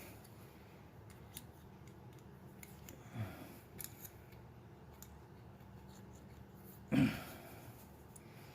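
Faint clicks and small handling sounds of a homemade steel knob being fitted onto a kerosene heater's control shaft, with one louder short sound about seven seconds in.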